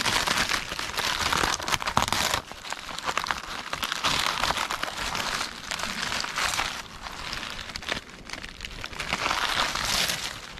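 Dry, papery birch bark being peeled and torn from the trunk by hand, crackling and crinkling in three louder spells of pulling.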